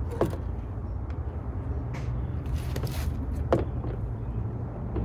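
A loosened plastic door trim panel being handled: a few short knocks and creaks, the loudest about three and a half seconds in, over a steady low hum.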